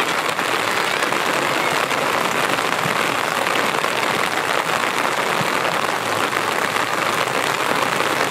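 Steady rain falling: a dense, even hiss of drops that keeps on without a break.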